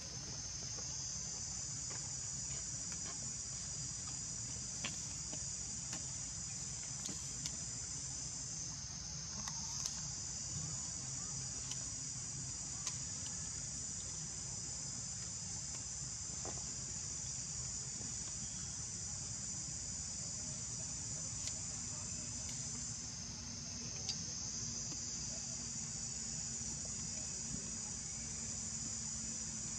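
A steady, high-pitched chorus of insects, dipping briefly twice, over a low hum with a few faint ticks.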